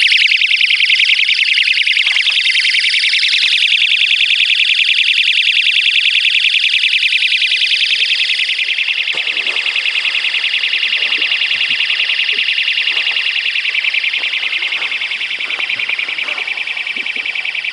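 A bike cable-lock alarm going off: a piercing, rapidly warbling electronic siren sounding without a break, triggered by tampering with the lock's steel cable. It eases slightly after about eight seconds.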